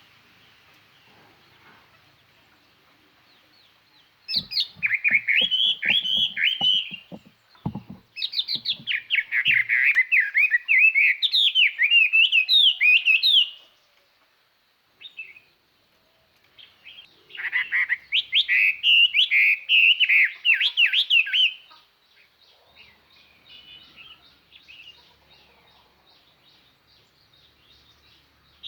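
Chinese hwamei decoy bird singing loud, rapid phrases of varied whistled notes in three long bouts with short pauses between, the song used to call wild hwamei. A series of soft knocks sounds under the first bout.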